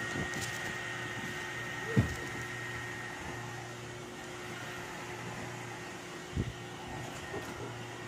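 Steady whir of a small electric motor, like a room fan, with a faint high whine that fades after about three seconds. A sharp knock comes about two seconds in and a softer one past six seconds.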